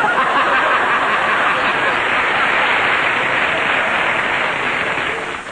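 Studio audience laughing and applauding after a joke, a steady dense wash that fades away about five seconds in.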